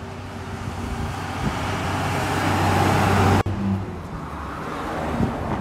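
Road vehicle noise swelling steadily for about three and a half seconds, then cut off abruptly and followed by quieter traffic-like noise with a few low thumps.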